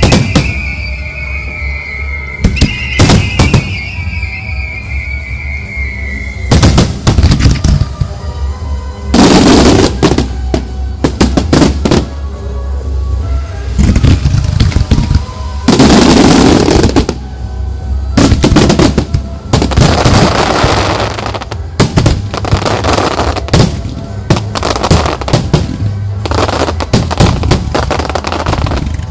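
Fireworks shells launching and bursting close by, with music playing over them. In the first six seconds two long whistles slide slightly down in pitch, and there are sharp bangs throughout, with long loud bursts about nine and sixteen seconds in.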